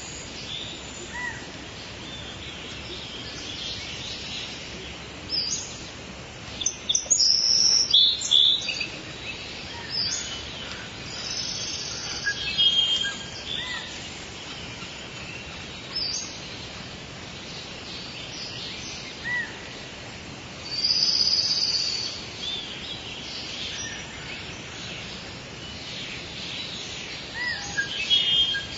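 Birds chirping and calling in short high phrases over a steady outdoor background hiss, with louder bursts of calls now and then.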